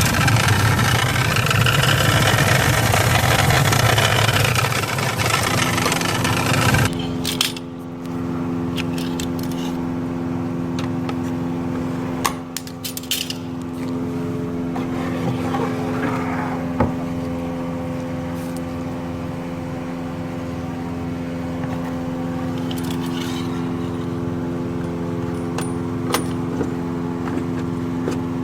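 Mechanical running: a loud rush of air for about the first seven seconds, then a steadier hum with a few light clicks.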